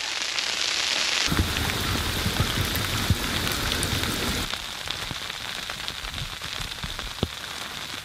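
Icy snow pattering steadily on a tent, with a stretch of louder rustling and bumping from about a second in until about halfway through.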